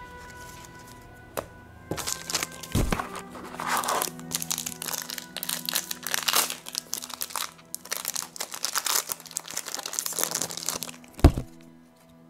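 Stiff trading cards handled, rustling, clicking and sliding against each other as they are flipped through, with two dull knocks, the second near the end the loudest, over background music.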